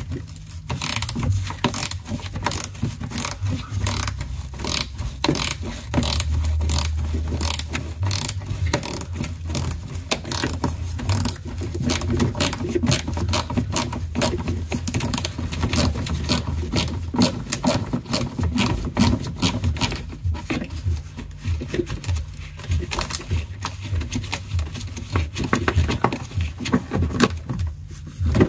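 Socket ratchet on an extension clicking in quick, irregular runs as 10 mm bolts are undone from a car's plastic underbody shield, with scrapes and knocks of the tool against the panel.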